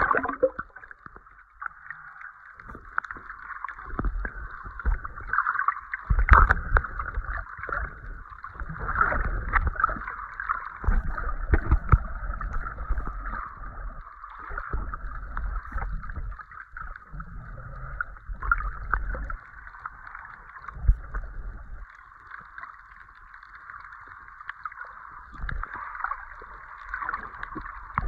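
Muffled underwater water noise heard through a submerged camera's waterproof housing: a steady hiss with irregular low thumps and sloshing as water moves against the case.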